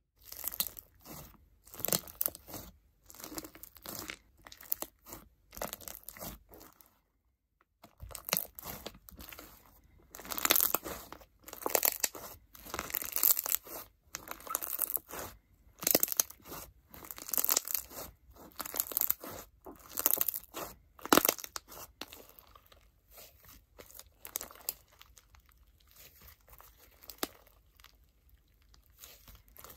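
Clear crunch slime being squeezed, pressed and stretched by hand, giving repeated bursts of crackling crunch and tearing sounds roughly once a second. There is a brief pause about seven seconds in, and the crunching is softer in the last third.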